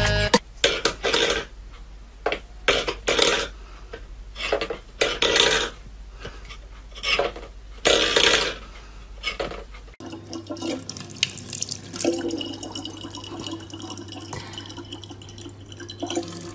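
A series of short scrapes and clatters, like a steel food bowl pushed on a wooden floor, about one a second. About ten seconds in, a kitchen tap runs a thin stream of water into a plastic bottle over a steady hum.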